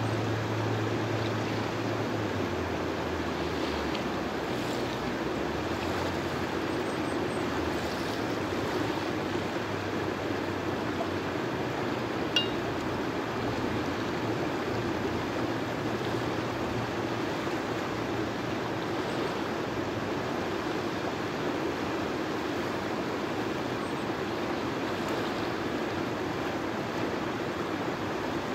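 River water rushing steadily over rocks in shallow rapids, with a single short click about twelve seconds in.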